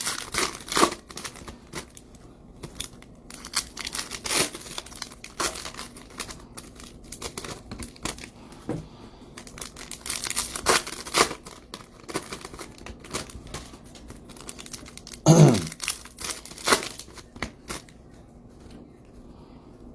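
Plastic wrapping crinkling and tearing in short, irregular bursts, the sound of sealed packaging being handled and opened. About fifteen seconds in, a brief voice sound falls in pitch.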